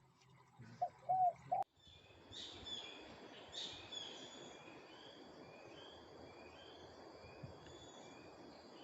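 Outdoor birdsong: a small bird gives a long series of short, high chirps, a few a second, over a steady rural background hiss. In the first second and a half, before an abrupt cut, there are a few short low notes.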